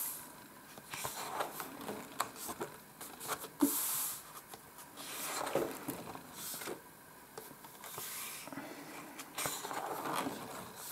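Paper pages of a spiral-bound colouring book being turned and smoothed flat by hand: several soft swishes of turning pages, with light rubbing and small taps of the hand on the paper.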